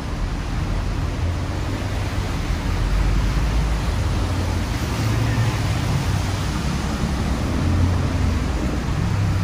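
Road traffic on a rain-wet city street: vehicle engines rumbling low, swelling as heavier vehicles pass, over a steady hiss of tyres on wet road.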